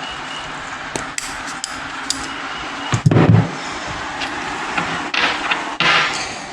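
Metal hand tools clicking and clinking against an engine's crankcase while its bolts are being taken out, with one heavier knock about three seconds in and short rasping scrapes near the end.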